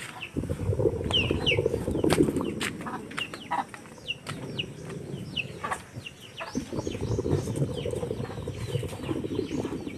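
Chickens clucking and chirping, with many short downward chirps, over a low rumbling noise that comes and goes, with scattered sharp clicks.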